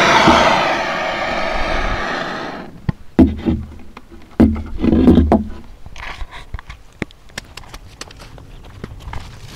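Handheld gas blowtorch hissing steadily as its flame is played over the inside of a wooden beehive against insect pests, cutting off about two and a half seconds in. It is followed by a few dull knocks and handling bumps, with small clicks near the end.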